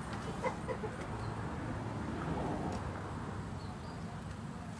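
Light knocks and rustling as a bamboo eel trap is handled, over a faint steady outdoor background with a few faint bird chirps.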